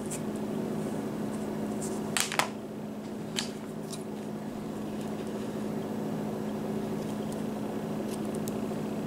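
Scissors snipping a rubber band to length: a quick pair of sharp snips about two seconds in and one or two more a second or so later. Under them is a steady machine hum.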